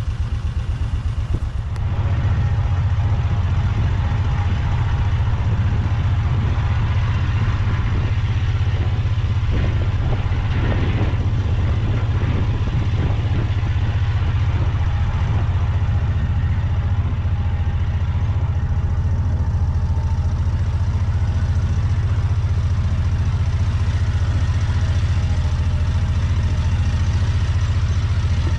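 A vehicle engine running steadily while driving, with a strong low rumble; it picks up slightly about two seconds in.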